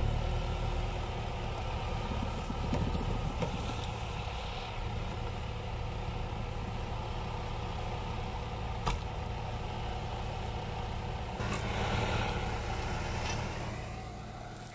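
Off-road 4x4's engine running steadily at low revs as the vehicle creeps in reverse on the trail. There is a single sharp knock about nine seconds in and a brief louder stretch around twelve seconds.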